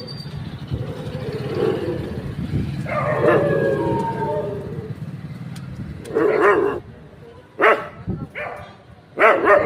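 Street dogs barking at night: drawn-out calls in the first half over a low rumble, then a string of sharp, loud barks in the second half.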